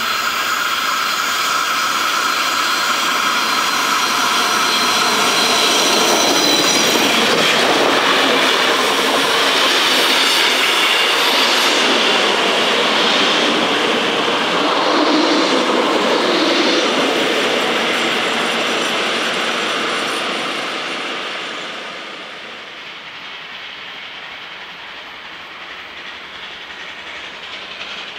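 Steam-hauled train of 141.R 1244 passing close by, wheels clattering over the rail joints. A high steady ringing tone sounds for the first several seconds, the noise is loudest in the middle, and it drops away suddenly after about twenty seconds as the train moves off.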